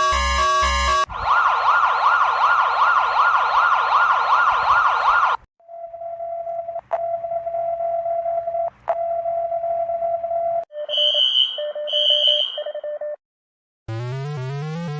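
A string of electronic emergency-alert alarm tones. A warbling siren tone wavers about three times a second. Then a steady single tone with two sharp clicks, and two pulsed beeps, and after a moment of silence a rising synthesized sweep near the end.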